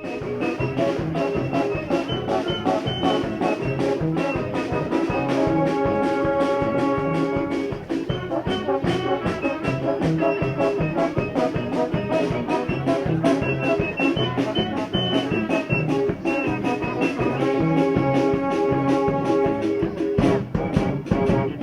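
Street band music: held horn notes over a quick, steady drumbeat and a bass line, starting abruptly.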